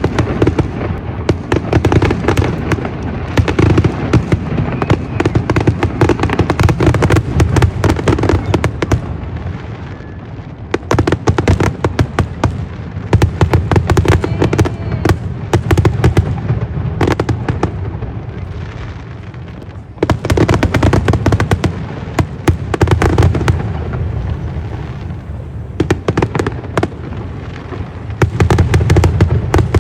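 Fireworks display: dense volleys of bangs and crackling bursts, easing off twice in short lulls before the barrage picks up again.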